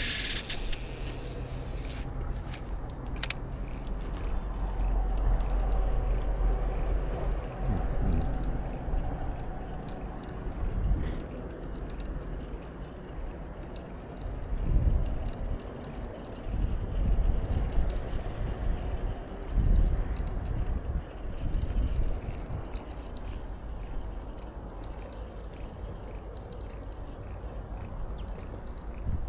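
Wind buffeting the microphone: a low rumble that swells and fades in irregular gusts, with a few clicks near the start.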